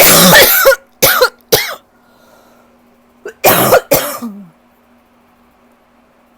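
A rough allergy cough: one long harsh cough followed by two short ones, then after a pause another cough about three and a half seconds in. It comes from allergies with a tight chest.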